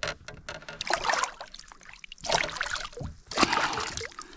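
A hooked bream splashing and thrashing at the surface as it is drawn up by hand on the line, water sloshing in several irregular bursts.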